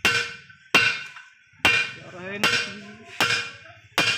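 Hammer blows on a metal tube used as a drift, driving a new bearing into a Maruti Suzuki Eeco gearbox housing: six sharp, ringing metal strikes, about one every 0.8 seconds.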